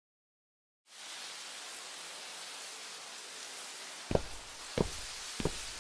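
A steady hiss, then sharp, evenly spaced knocks, about one and a half a second, starting about four seconds in.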